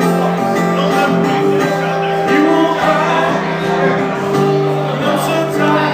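Live solo performance: a guitar played with a man's voice singing over it.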